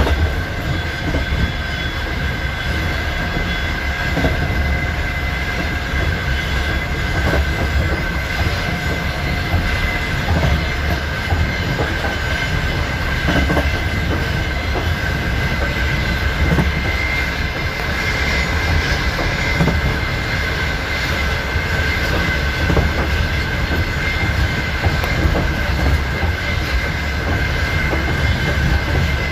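Wheels of a night express passenger train clattering over the rails on a steady run, with a steady high-pitched squeal running alongside.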